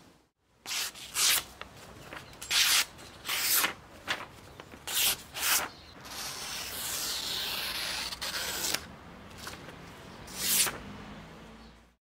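A small 80CrV2 carbon-steel knife blade slicing through a sheet of paper. A quick run of short cuts fills the first half, then comes one longer drawn slice a little past halfway and a single short cut near the end.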